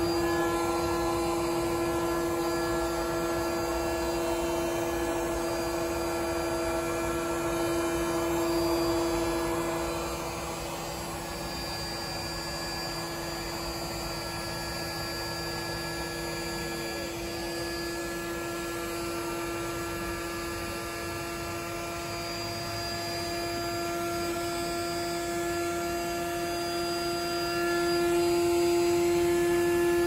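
Electric air pump built into an auto-inflatable paddling pool running with a steady hum, blowing up the pool's walls.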